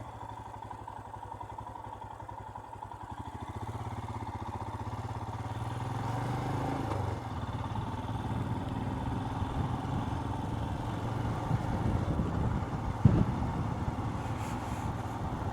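Royal Enfield Himalayan's single-cylinder engine idling with an even pulse, then picking up revs about four seconds in as the bike moves off at low speed. There is a single sharp knock near the end.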